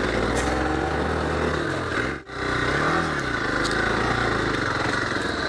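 Hero Xpulse 200 4V motorcycle's single-cylinder engine running while ridden, its pitch rising and falling with the throttle. The sound drops out sharply for a moment a little over two seconds in, then carries on.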